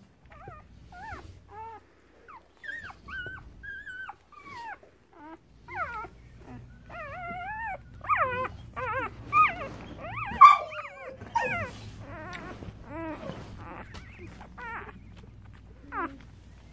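A litter of newborn puppies squeaking and whimpering: many short, high-pitched cries that bend up and down, overlapping and loudest from about eight to twelve seconds in.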